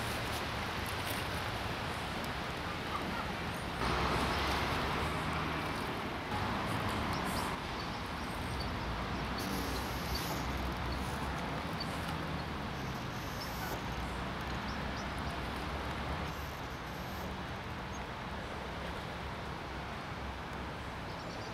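Steady outdoor background noise with a low hum of distant traffic, and a louder rush of noise about four seconds in.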